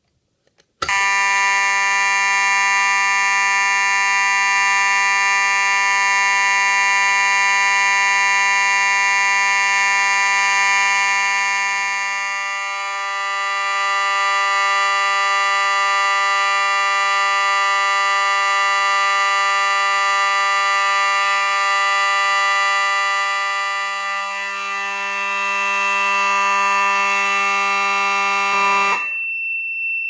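Federal Signal 450D fire alarm horn with a Faraday vibrating-horn mechanism, set off by a pulled fire alarm pull station, sounding a loud, steady, continuous blare that starts abruptly about a second in. Near the end the horn cuts off as the alarm is silenced, and the control panel's piezo trouble sounder takes over with a single steady high tone, signalling the trouble condition that silencing creates.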